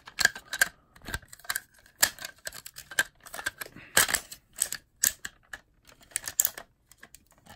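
Irregular sharp clicks and clacks of hard plastic toy parts being shifted and snapped into place on the King Tiger transforming robot toy, during its change into warrior mode.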